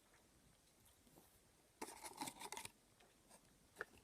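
Quiet handling of the smartwatch and its box and packaging: a short scraping rustle about two seconds in, then a couple of light clicks near the end.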